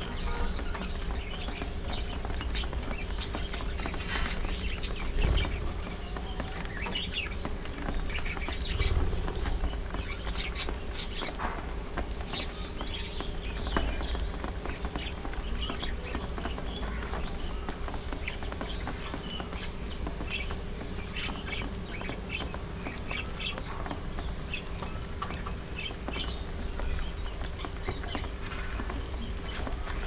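A budgerigar colony chirping and chattering, with many short, overlapping calls throughout, over a steady low hum.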